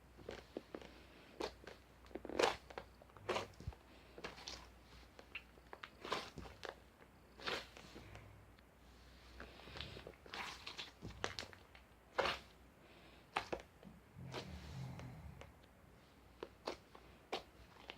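Irregular short crunches and clicks, a few a second, with no steady rhythm.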